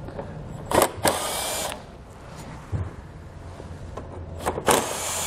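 Cordless impact driver running in two short bursts, about a second in and again near the end, backing out bolts that hold a car's front bumper fascia.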